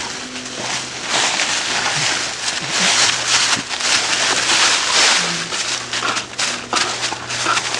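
Dry fallen leaves rustling and crackling as a dog rolls and scrambles through them, loudest in the middle seconds, with many small crunches.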